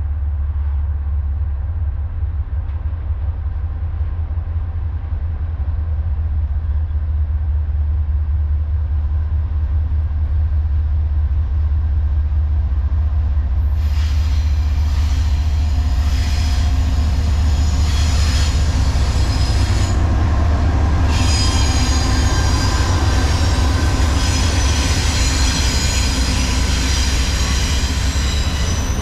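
Norfolk Southern freight train approaching slowly behind an ES44DC, an AC44C6M and a Dash 9-44CW diesel locomotive: a deep steady rumble throughout, joined about halfway through by high squealing from the wheels on the rails, louder as the locomotives and intermodal cars draw close.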